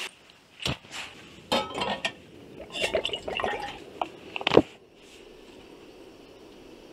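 Metal camping cookware clinking as a metal mug, its lid and a small gas stove's wire pot stand are handled: five or six sharp clinks over about four and a half seconds, the last the loudest. Then a faint steady hiss.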